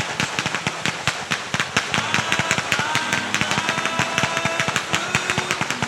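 Fireworks going off in a rapid, dense barrage of crackling pops, many a second, with several whistles that rise briefly and then hold.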